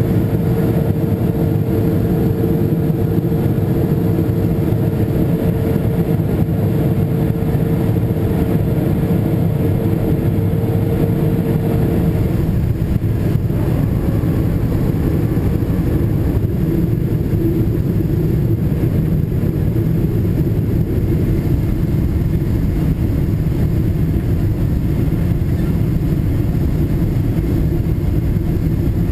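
Cabin noise of a Boeing 777-200ER on final approach, heard inside the cabin at a window beside its GE90 engine: a steady low rumble of engines and airflow. A thin steady hum over it stops about twelve seconds in.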